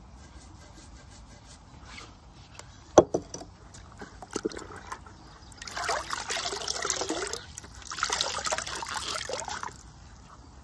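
A large sponge sloshed and squeezed out in a bucket of water, in two splashy spells of about a second and a half each. A sharp knock and a few lighter knocks come a few seconds before them.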